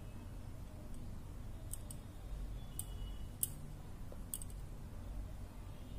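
Faint handling sounds of crocheting a chain: a handful of light, sharp clicks from a metal crochet hook and fingers working wool yarn, over a low steady hum.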